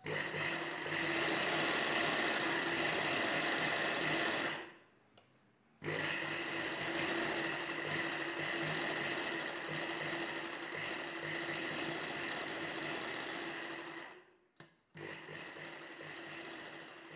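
Ralson sewing machine stitching cloth in runs: it runs for about four and a half seconds, stops for about a second, runs again for some eight seconds, pauses briefly, then runs on more quietly near the end.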